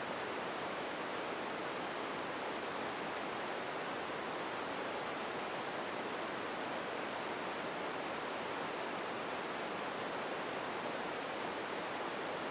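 Empty ambience noise: a steady, even hiss with no distinct sounds in it and no change in level.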